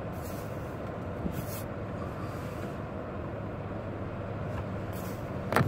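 Steady hum of a car idling, heard inside the cabin, with a few brief soft hisses. A short louder noise comes just before the sound cuts off.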